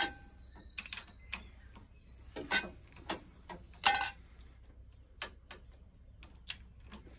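Torque wrench ratcheting on the front fork clamp bolts of a Harley-Davidson Road King being tightened to 45 newton meters: a run of irregular sharp clicks with a few louder metal knocks.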